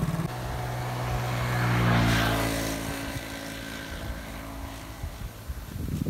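Motorcycle engine running, growing louder to a peak about two seconds in and then fading away.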